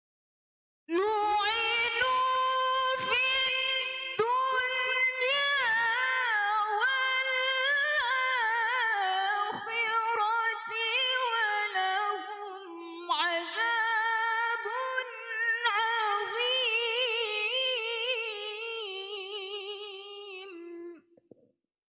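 A teenage girl chanting Quranic recitation (tilawah) solo: one long, richly ornamented melodic phrase with wavering trills and glides. It starts about a second in, dips briefly just past halfway and fades out near the end.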